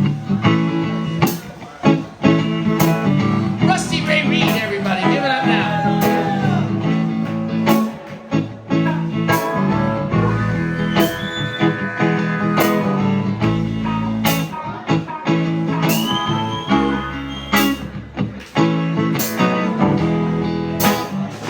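A band playing a blues-rock instrumental intro: a lead guitar line with bent notes over a bass line and a steady drum beat.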